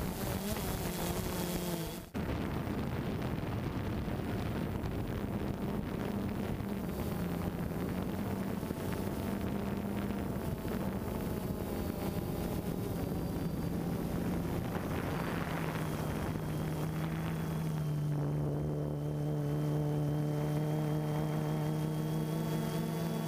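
DJI Phantom 2 quadcopter's motors and propellers humming steadily in flight, picked up by the camera on the drone, with wind hiss. The sound breaks off briefly about two seconds in, and near the end the hum changes pitch and grows a little stronger as the motors change speed.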